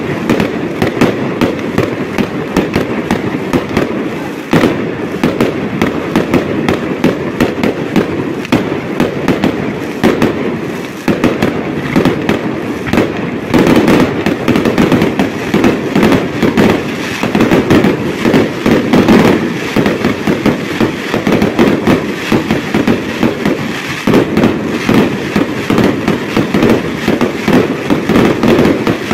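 Aerial fireworks display at close range: a continuous, rapid barrage of bursting shells and crackle, many bangs a second without a pause.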